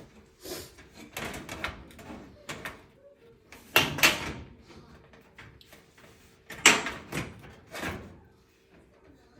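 Sheet-metal back panel of a gas range being fitted and pushed into place: a series of clanks and knocks, the two loudest about four and seven seconds in.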